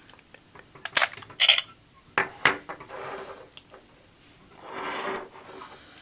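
Plastic clicks and snaps from the Gabutyra De Carnival dinosaur toy as its jaw is worked with a Jyudenchi in its mouth, the loudest about a second in. Near the end comes a short hiss-like burst, the toy's electronic sound effect.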